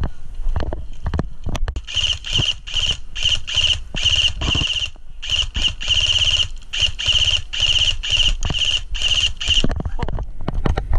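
Airsoft electric rifle firing a long run of short bursts, about two a second, each a high-pitched whirring rattle of the gearbox cycling. The bursts begin about two seconds in, pause briefly near the middle and stop shortly before the end.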